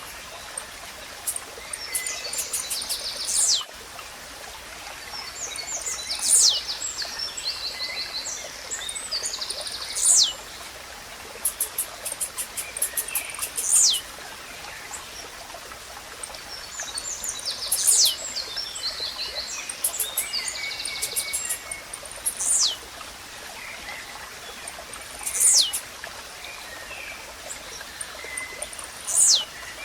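Blue-black grassquit (tizil) repeating its short, high song, a steeply falling note about every three to four seconds, with other small birds twittering between and the steady rush of a stream beneath.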